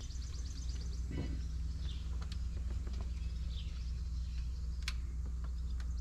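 Outdoor background noise: a steady low hum with faint bird chirps over it and a couple of soft clicks.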